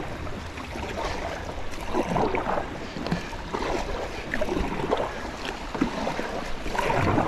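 Kayak moving through flowing river water, with steady rushing water and irregular splashes from the paddle and hull.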